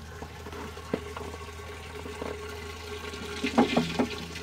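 Water running in a 1920s Royal Doulton cast iron bell-siphon cistern: a steady hiss with a faint even tone, then a few light metal clanks from the cast iron lever and chain being handled, a little after three seconds in.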